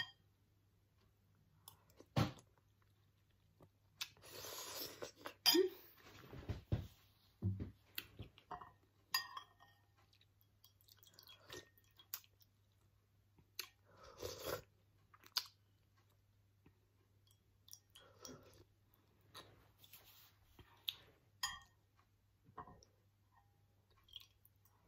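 A person eating: chewing and sipping soup from a spoon, in short scattered sounds with two longer sips or slurps, about four seconds in and again near the middle.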